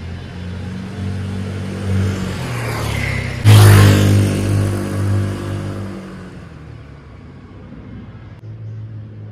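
Chinese 150cc liquid-cooled motor scooter engine running as the scooter rides by. It builds up, is loudest as the scooter passes close about three and a half seconds in, then fades as it goes off down the street.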